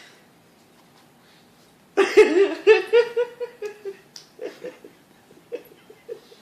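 A person bursts out laughing about two seconds in: a rapid run of loud ha-ha pulses that trails off into quieter, scattered giggles.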